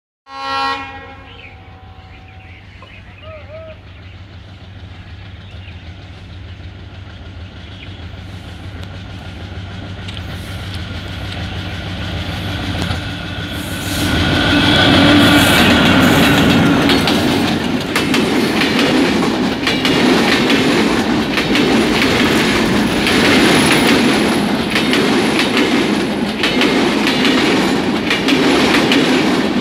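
Diesel-hauled passenger express approaching and passing. A short blast of the locomotive horn comes right at the start, then the diesel locomotive grows steadily louder as it nears. From about fourteen seconds in, the coaches' wheels clatter over the rail joints in a quick, steady rhythm.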